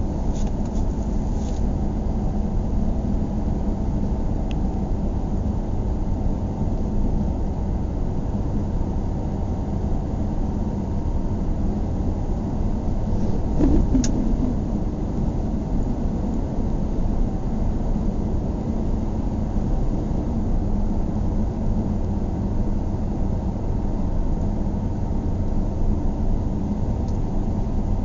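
Steady low rumble of a car's road and engine noise, heard from inside the cabin while driving, with a brief louder knock about halfway through.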